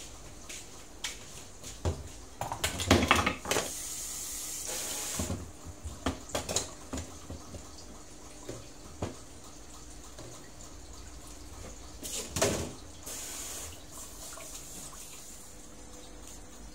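Kitchen tap running into a stainless steel sink twice, for a second or two each time, as shallots and tomatoes are rinsed in a plastic colander. Knocks and clatter of the colander and bowls come in between.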